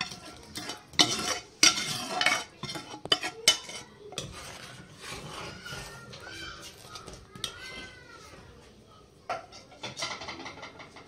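Spoon stirring in a cooking pot of milk, clinking and scraping against its sides. The clinks come quickly in the first few seconds, ease off in the middle, and pick up again near the end.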